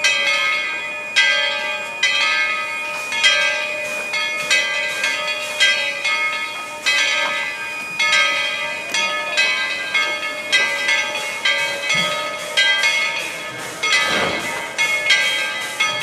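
Steam locomotive bell ringing steadily, about two strokes a second, each stroke ringing on. A brief rush of noise swells in about fourteen seconds in.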